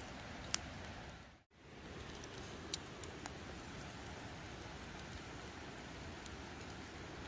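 Campfire coals under cooking eggs, hissing steadily with a few sharp crackling pops. The sound drops out briefly about a second and a half in.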